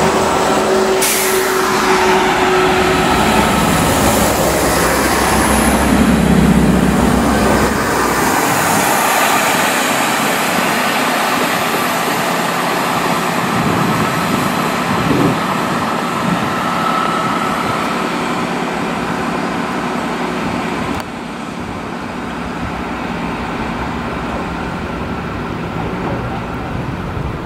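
Class 166 Turbo diesel multiple units running, with underfloor diesel engines and wheel-on-rail noise. A unit pulls away with a strong low engine drone, and the sound changes abruptly about two-thirds of the way through as another unit approaches.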